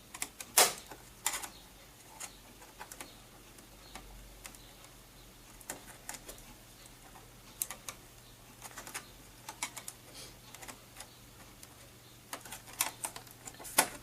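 Scattered sharp plastic clicks and taps from handling a Sony Blu-ray player's plastic casing as its locking tabs are worked loose from their notches. The loudest clicks come about half a second and a second in, with a quick cluster near the end.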